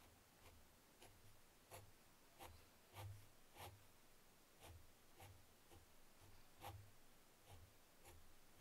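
Fine-tip ink pen scratching short strokes on drawing paper, faint, with a quick stroke about every half second as small lines are drawn.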